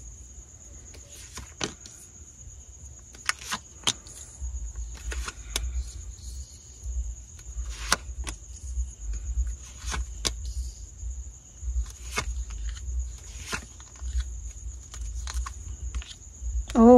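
Tarot cards being dealt and set down one after another on a table: sharp light clicks and slaps at irregular intervals, over a steady high-pitched whine and a low hum.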